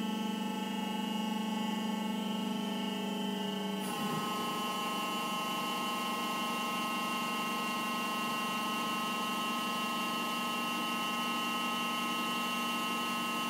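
Rotek Pile Turner 900 running under power: a steady motor whine made of several pitched tones. About four seconds in the tones shift abruptly as the tilting section swings level and stops.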